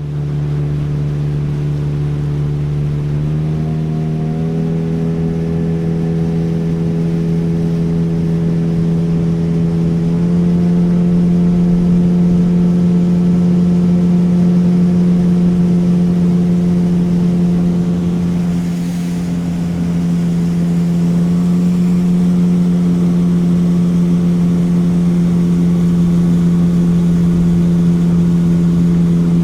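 Motorboat engine running steadily under way. Its pitch steps up slightly about three seconds in and again about ten seconds in as the engine speeds up.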